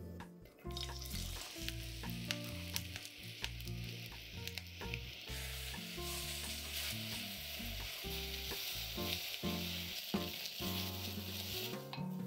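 Sliced onions sizzling as they stir-fry in hot olive oil in a glass pot. The sizzling starts under a second in, with clicks of a wooden spatula against the glass, and drops away near the end.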